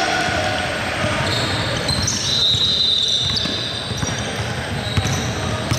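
Basketball game on a gym court: the ball bounces repeatedly and sneakers squeak high on the floor, with players' voices in the background. There is a sharp knock about five seconds in.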